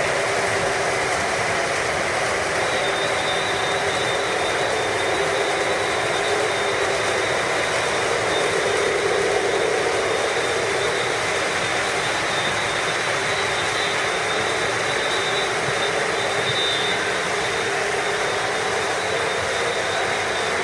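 Several O gauge model trains running at once on three-rail track: a steady mechanical rumble and whir of wheels and motors, with a thin high whine throughout.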